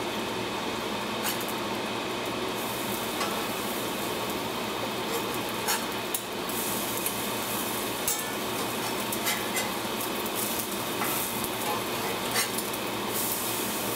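Pancakes sizzling in oil in a cast-iron skillet, with a few sharp clicks and scrapes of a metal spatula against the pan as they are turned over one by one.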